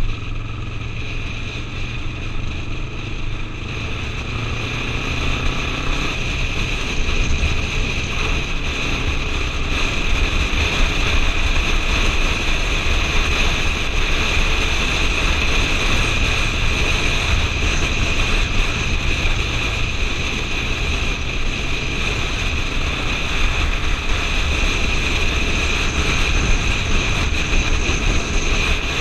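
Motorcycle riding along a country road, its engine running steadily under heavy wind rush on a helmet-mounted microphone. The wind noise grows louder about six seconds in and stays up.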